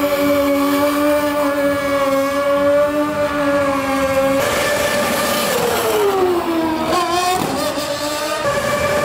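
Sport stunt bike's engine held at steady high revs for about four seconds. After that an engine's pitch falls, dips and climbs back up as it slows and accelerates again.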